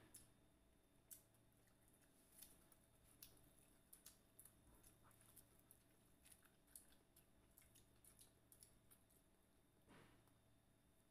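Faint chewing and eating of crispy fried chicken, with scattered small clicks and crackles from mouths and fingers on the food.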